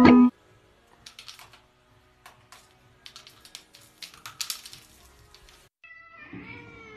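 Faint, irregular light clicks and taps, then near the end a cat's drawn-out meow that bends in pitch.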